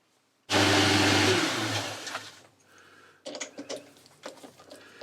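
Electric motor of a workshop machine tool running loudly, then switched off and winding down with a falling hum. A few light clicks follow.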